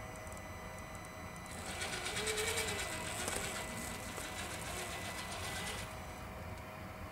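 Venom Creeper RC rock crawler's electric motor and drivetrain whining steadily as it drives. From about a second and a half in to about six seconds it gets louder and grittier, with crackling, as the tyres climb over crusted snow.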